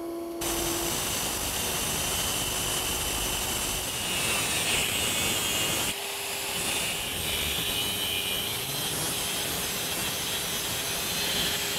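An angle grinder with a 4-inch cutoff wheel cuts through the shaft of a NetGain Warp 11 electric motor while the shaft spins under 12-volt battery power: a steady, hissing grind with a constant hum underneath. The sound breaks off briefly about six seconds in.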